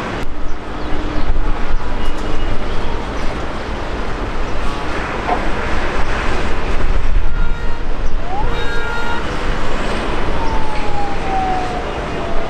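Loud, steady rumbling noise of road traffic, with a horn sounding briefly about two-thirds of the way through and a siren-like tone sliding slowly downward near the end.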